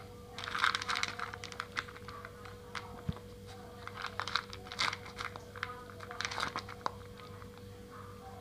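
A domestic cat crunching dry kibble from a plastic tub: bouts of crisp, rapid chewing clicks about a second in, again around four to five seconds in, and briefly around six seconds in.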